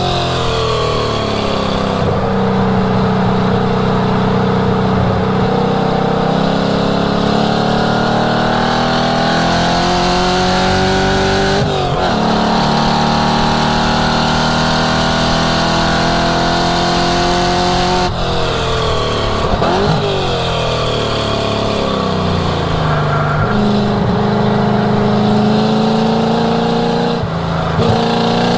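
1967 Ford Mustang's cammed 5.0-litre V8 exhaust under hard acceleration on a track lap, rising in pitch through the gears. There are breaks for gear changes about twelve and eighteen seconds in and again near the end. Around twenty seconds the revs drop off and climb again sharply.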